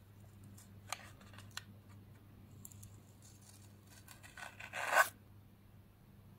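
A paper sticker label being picked at with a fingernail and peeled off a cardboard lipstick carton: a few small clicks and scratches, then a louder ripping rasp, under a second long, as it tears away about four and a half seconds in.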